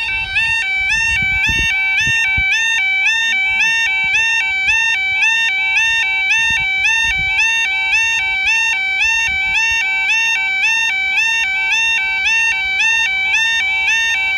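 New-type electronic level-crossing alarm sounding, a loud two-tone warble that steps back and forth between a higher and a lower pitch in a steady repeating pattern. It signals that the barriers are down and a train is approaching.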